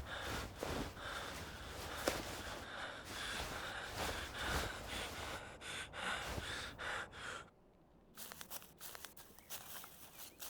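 A person's heavy breathing with rustling and handling noise. About seven seconds in it drops to sparse, quieter rustles and steps.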